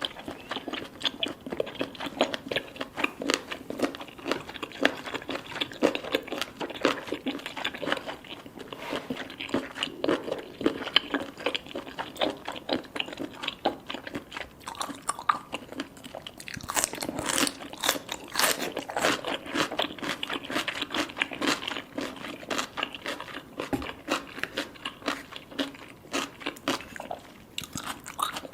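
Close-miked chewing and biting of baby cuttlefish: soft, crunchy, wet mouth sounds made of many small clicks in a steady run, with a sharper, brighter stretch a little past the middle.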